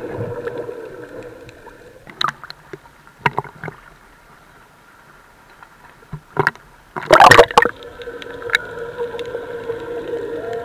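Water splashing against a snorkeller's action camera as it is lifted out of the water and then plunged back under. The loudest moment is a rush of water about seven seconds in. Underwater, a steady low hum with a few even tones can be heard before and after.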